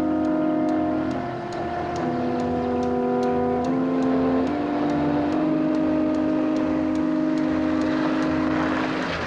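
Suspense score music: held chords that shift to new notes every second or so, over a pulsing low beat and a steady high ticking.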